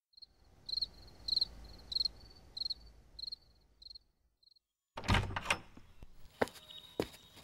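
Insect chirping, short high chirps about two a second, fading out over the first four seconds. After a brief pause, a door opens with a latch click and a thunk, followed by a few more knocks and rattles.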